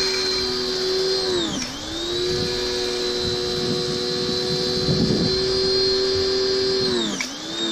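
Greenworks 1600 PSI electric pressure washer running under load while spraying through a foam cannon: a steady motor whine over the hiss of the spray. The pitch sags and recovers briefly twice, about a second and a half in and again near the end.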